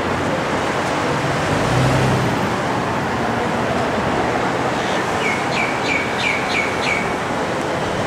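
Steady outdoor traffic noise, with a low hum swelling briefly about two seconds in. About five seconds in, a bird gives six short, falling chirps in quick succession.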